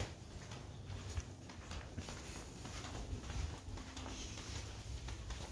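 Faint, irregular footsteps on a concrete floor with handling noise from a handheld camera, over a low rumble.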